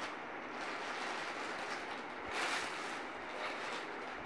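Plastic courier packet rustling and crinkling as hands handle and pull it open, with a louder crinkle about two and a half seconds in, over a steady background hiss.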